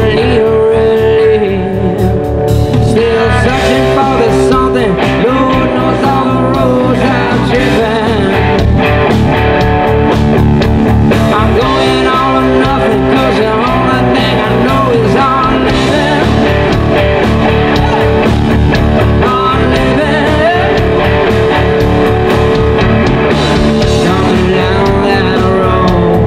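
Live rock band playing an instrumental section: electric guitar lead with bending notes over drums and bass.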